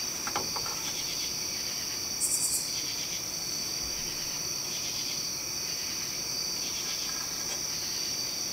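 Insects chirping steadily in a high-pitched chorus, with a brief high rattle of a few quick pulses about two seconds in.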